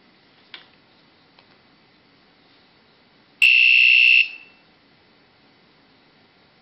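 Electronic sounder in a homemade Atmega8-controlled skull gadget giving one steady high-pitched beep of just under a second, about three and a half seconds in. Two faint clicks come before it.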